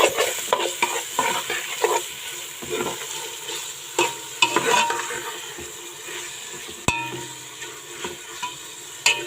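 Fresh tomatoes frying in oil in a pot, sizzling, while a spoon stirs and scrapes through them in irregular strokes. One sharp knock of the spoon on the pot comes about two-thirds of the way through.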